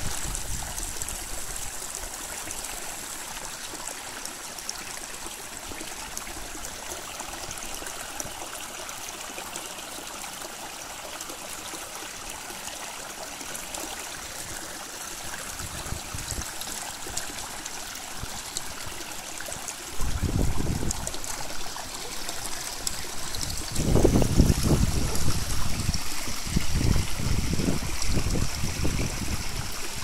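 Steady rushing of a monsoon-swollen stream pouring over the top of a waterfall. About two-thirds of the way through, bursts of low rumble on the microphone come in and continue to the end, louder than the water.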